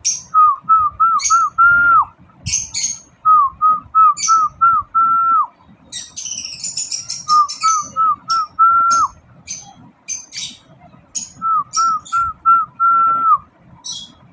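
A whistled phrase repeated four times, about every four seconds: five quick rising notes and then a longer held note that drops away at the end. Short, sharp high chirps come between the phrases, in a quick cluster about halfway through.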